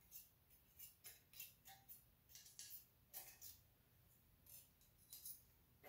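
A series of faint, irregular scratches and ticks from a thin steel feeler gauge being slid and tapped under a precision straight edge laid on the Honda B18B1 engine block's deck. This is a check of the deck for warpage; the 0.003-inch blade is found not to pass under.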